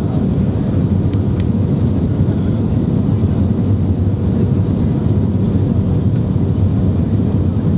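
Steady low rumble of airflow and the IAE V2500 turbofan engines heard inside the cabin of an Airbus A320-232 during its descent to land, with a faint steady hum on top.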